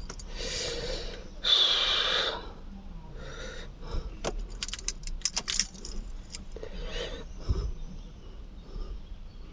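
Two short breathy, rustling hisses near the start, the second the louder, followed by a run of light clicks and small rattles, like keys or small parts being handled.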